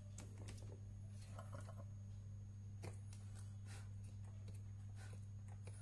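Faint scattered clicks and taps of soldering-iron tips against an LED bulb's metal-backed LED board while a burnt-out LED is desoldered, over a steady low hum.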